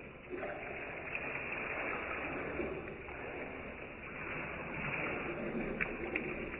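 Cooled beer wort poured in a stream from a jug, splashing into more wort in a stainless steel brew pot. The splashing makes turbulence to get oxygen into the wort so the yeast works better. Two light clicks near the end.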